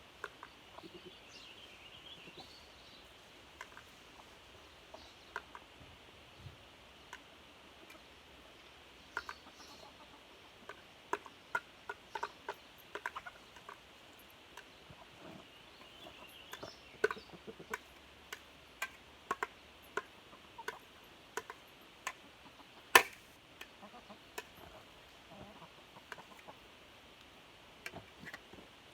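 Chickens clucking softly while pecking at food, with many short sharp taps scattered through, the loudest one a little before the end.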